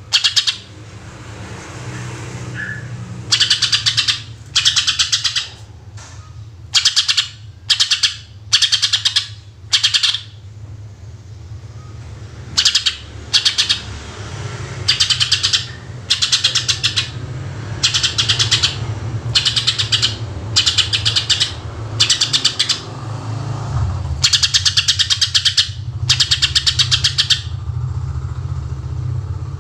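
Cucak ijo (green leafbird) singing in rapid-fire bursts: about twenty short, fast trilled phrases, each under a second, with a steady low hum underneath.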